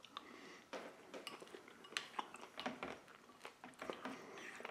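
Faint, scattered clicks and light scrapes of a spoon in a bowl of thick, creamy Waldorf salad as it is stirred.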